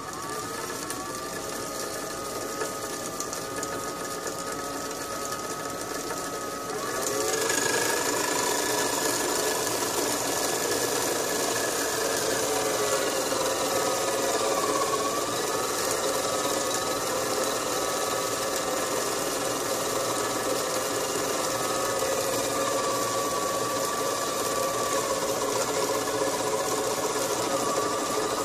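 A small electric motor drives the belt-driven cutter spindle of a watchmaker's lathe set up to cut pinion leaves. It runs steadily with a whine that wavers slightly in pitch. About seven seconds in the sound steps up, louder and with more high hiss, and then holds steady.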